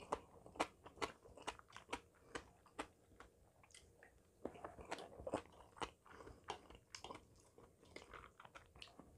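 Close-miked chewing of a mouthful of curry rice, faint, made up of short wet clicks and smacks of the mouth, about two a second at first and bunching together midway.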